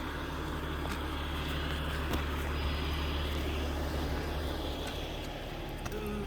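Large truck engine idling steadily with a low, even hum, a couple of faint clicks, and a brief whine near the end.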